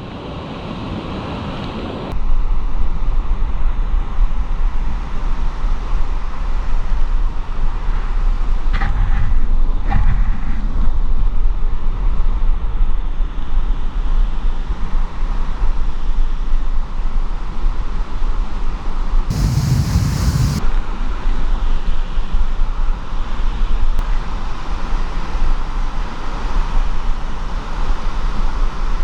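Loud, steady rushing noise with a heavy low rumble, stepping up about two seconds in. A short, louder burst comes about twenty seconds in.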